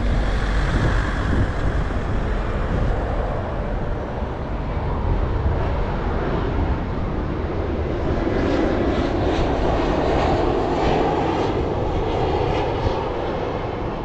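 Twin-engine jet airliner flying low overhead, a steady jet engine noise that fills out a little past halfway.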